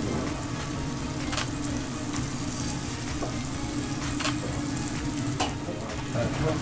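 Thick-cut Miyazaki wagyu steak sizzling steadily as it sears on a flat steel teppanyaki griddle, with a few sharp clicks.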